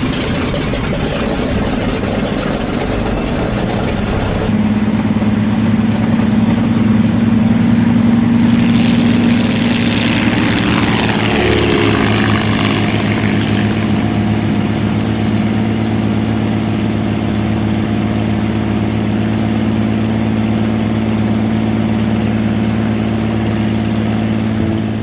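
Light aircraft's piston engine and propeller running at high power, heard from inside the cockpit: a steady drone that settles about four seconds in. Partway through, a rush of air noise swells for a few seconds and fades.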